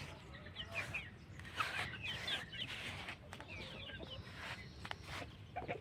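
Poultry flock calling: many short high chirps overlapping, with occasional lower clucks.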